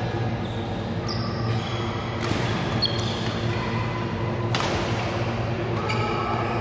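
Badminton rackets striking a shuttlecock during a rally, three sharp hits that ring briefly in the large hall, over a steady low hum.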